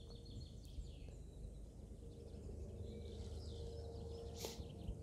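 Faint outdoor ambience: a steady low rumble with a few scattered bird chirps, and a single sharp click about four and a half seconds in.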